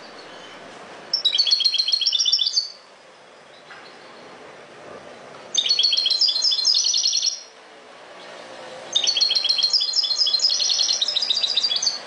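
European goldfinch singing in three phrases of rapid, high twittering notes, each a second and a half to three seconds long, with pauses of about three seconds between them.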